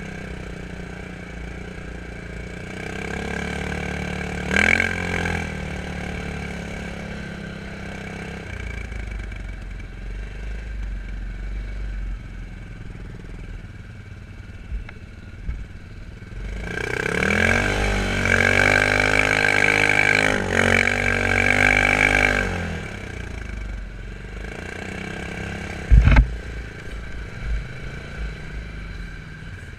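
Quad bike (ATV) engine running at low revs, revved hard for about five seconds past the middle, the pitch climbing and then dropping back. A single sharp knock near the end.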